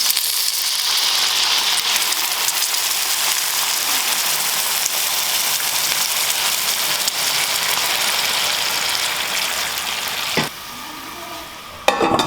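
Kothe momo (pan-fried dumplings) sizzling in a hot pan. The hiss starts abruptly and drops away about ten seconds in, followed by a couple of sharp knocks near the end.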